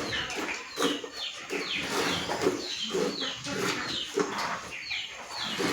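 Small birds chirping, a run of short, falling chirps about twice a second, over other low, irregular farmyard noises.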